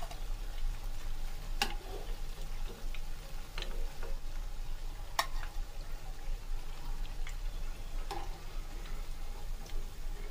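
Oil sizzling steadily around breaded potato bread rolls deep-frying in a pan, with a few sharp metallic clicks as a mesh strainer knocks against the pan while the fried rolls are lifted out.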